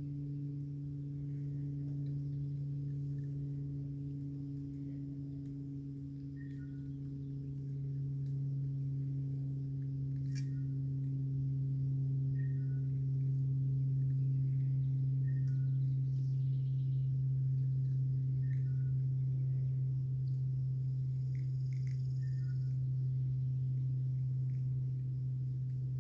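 A steady low hum, the loudest sound throughout, swelling slightly about a third of the way in. Faint short two-note chirps recur every few seconds above it.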